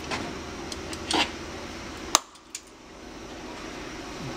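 Steady fan hum with a short rasp about a second in, then a single sharp snap a little past two seconds in: diagonal cutters snipping through steel wire.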